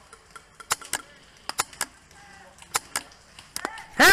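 Airsoft guns firing a scattering of single shots, sharp cracks at irregular intervals with several in quick pairs. A loud shout cuts in right at the end.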